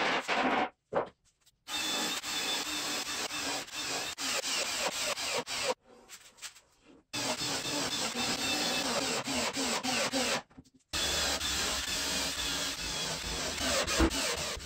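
Workshop handling noise on plywood: rubbing and scraping with scattered light knocks, in short clips that cut off abruptly into silence several times.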